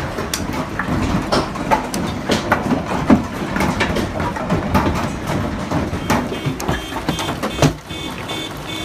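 Hailstones pelting down and hitting the ground, a dense, irregular clatter of sharp cracks, the stones shattering on impact.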